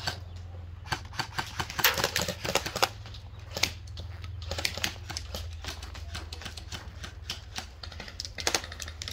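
Airsoft guns firing: irregular runs of sharp clicks, densest about two seconds in, with further short clusters later.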